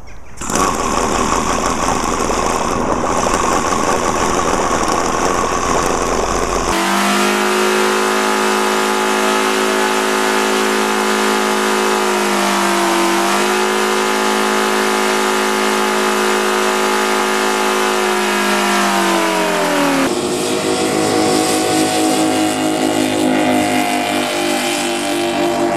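OS Sirius FR7, a seven-cylinder glow-plug four-stroke radial model aircraft engine, running at high speed. About seven seconds in the sound turns into a clear droning note that sags briefly and recovers, and about twenty seconds in it drops away as a different engine note takes over.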